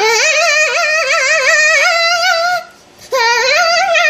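A girl singing loudly in two long held notes with a wide wobbling vibrato, each note scooping up in pitch at its start, with a short break for breath after about two and a half seconds.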